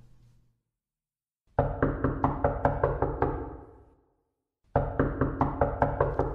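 Music: two bursts of rapid, evenly spaced percussive hits, about seven a second, each starting abruptly over a deep bass and fading away, with dead silence between them.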